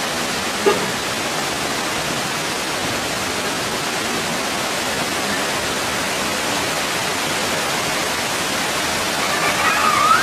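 A steady, even rushing hiss, with one short knock about a second in and a few faint high wavering calls near the end.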